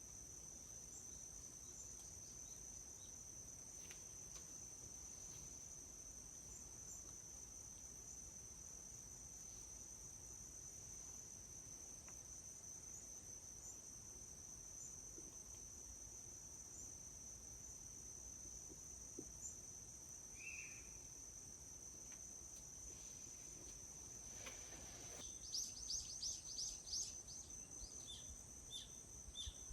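Faint, steady high-pitched trilling of crickets or other insects in a forest. Near the end a bird breaks in with a quick run of chirps, then repeats short, evenly spaced notes.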